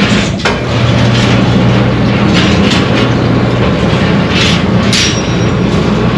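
Industrial shot-blast machine running with engine parts inside: a steady motor hum under a dense hiss and rattle of steel shot striking the metal, with brighter swells of hiss every second or so.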